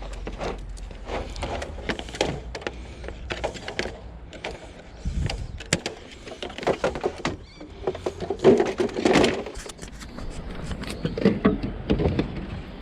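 Irregular clicks, knocks and rustling of junk being handled and shifted in a curbside pile, busier about two-thirds of the way through.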